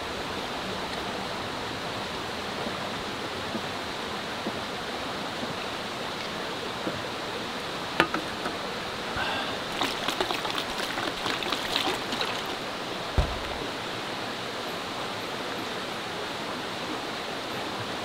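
Steady rush of a stream's flowing water. Over it come a sharp click about eight seconds in, a spell of light clicking and rustling around ten to twelve seconds, and a single dull thump shortly after.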